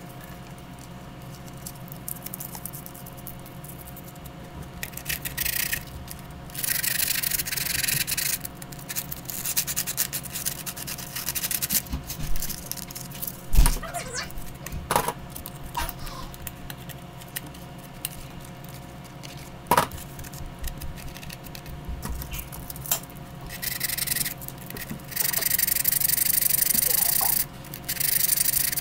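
Rubbing and rustling as hands handle and turn a rough papier-mâché model, in several bursts lasting a second or two, with a few short knocks. A steady low hum runs underneath.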